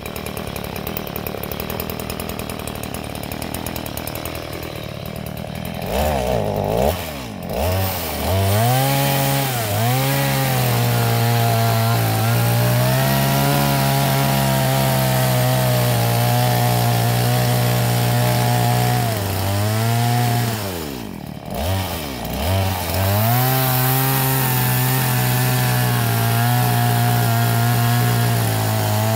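Two-stroke Stihl chainsaw running quietly at first, revved up twice about six seconds in, then held at full throttle as the chain cuts into an oil palm stump. About twenty seconds in the revs drop away briefly, then it picks up and cuts again at a steady pitch.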